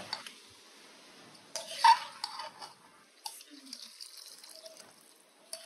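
Water poured from a steel cup into a steel pot of rice, with a few sharp knocks of steel utensils, the loudest about two seconds in.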